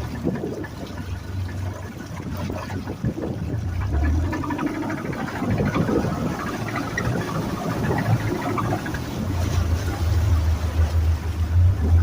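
2019 Mercury 150 hp FourStroke outboard's four-cylinder engine running with a steady hum and a rapid knocking throughout: the knocking noise of a powerhead taken to be blown.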